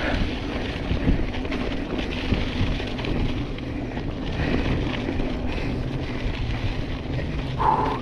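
Wind on the microphone and the steady rumble and rattle of a mountain bike rolling over a rough, stony dirt track, with scattered knocks from the bumps. A short higher-pitched sound comes near the end.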